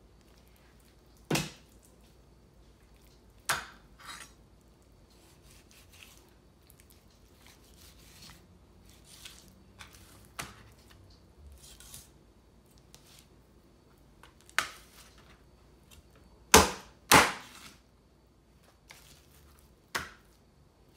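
Heavy cleaver chopping through a whole raw chicken onto a plastic cutting board: about eight sharp chops at uneven intervals, the two loudest half a second apart near the end, with quiet handling of the meat in between.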